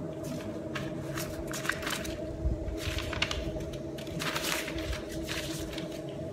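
Sheets of paper rustling and being shuffled by hand, in a series of brief rustles, over a steady low hum.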